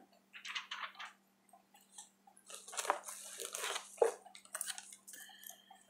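Rustling and clacking of cosmetic items and their packaging being handled and set down, with a sharp knock about four seconds in.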